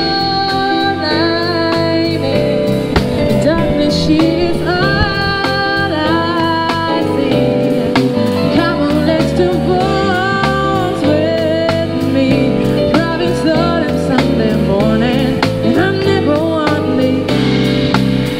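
A street band playing live: a woman singing over drums, guitar and keyboard.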